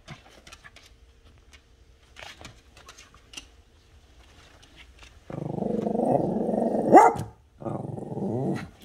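Small dog growling at a cat outside the window: a long low growl that breaks into a sharp rising yap, then a second shorter growl.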